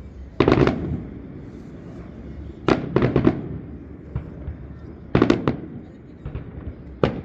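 Fireworks display: aerial shells bursting in quick clusters of sharp bangs, three or four at a time, about every two to two and a half seconds, with a low rumble of echo between the clusters and a single bang near the end.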